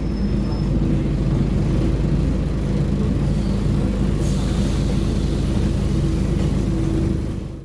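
Scania Omnicity N230UD double-decker bus engine running steadily under way, heard from inside the passenger saloon along with road noise. The sound fades out abruptly near the end.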